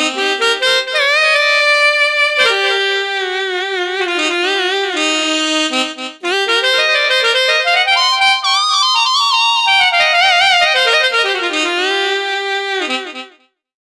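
Roland Fantom 06 synthesizer playing a reed-wind lead patch: a solo melody with vibrato and quick ornamental turns, in two phrases with a short break about six seconds in, fading out near the end.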